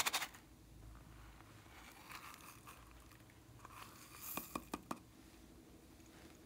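Quiet handling of a silicone unicorn pouch being emptied over a glass tray of slime: a short crackly burst at the start, soft rustling and crunching, then a quick run of small sharp clicks about four and a half seconds in.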